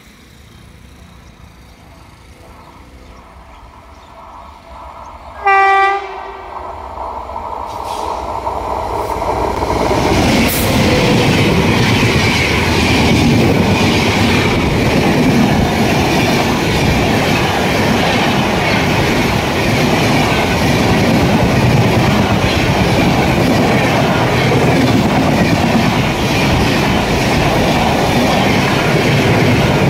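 An Indian Railways electric locomotive gives one short horn blast about five seconds in as it approaches. Then its express, the Rajdhani Express with red LHB coaches, passes close by at speed: a steady loud rumble and clatter of wheels on the rails from about ten seconds on.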